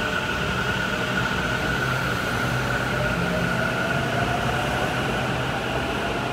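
Taichung MRT metro train pulling out of the station: a steady rolling noise with a motor whine. One of its tones rises in pitch about halfway through as the train picks up speed.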